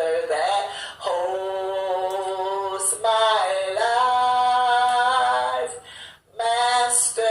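A woman singing a praise and worship song, holding long sustained notes, with a short break about six seconds in before she comes back in.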